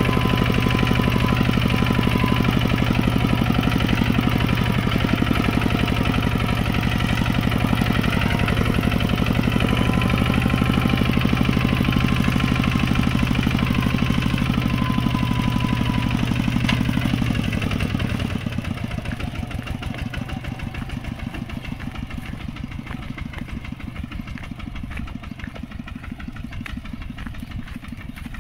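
Two-wheel walking tractor's single-cylinder diesel engine running steadily as it pulls a trailer loaded with straw bales. It drops noticeably in level about two-thirds of the way through as the tractor draws away.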